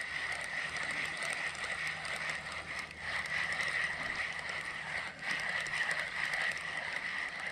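Spinning reel cranked steadily, a continuous whirring, as a hooked roach is reeled in on a bottom rig.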